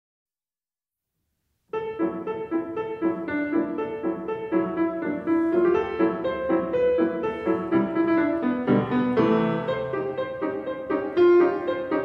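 Silence, then background piano music starts abruptly about two seconds in and plays on, a steady run of notes.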